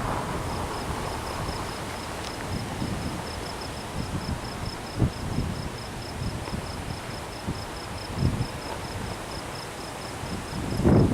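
A cricket chirping steadily, about five short high pulses a second. Under it runs low, uneven rumbling noise with a few brief swells, and a louder rush of noise rises just before the end.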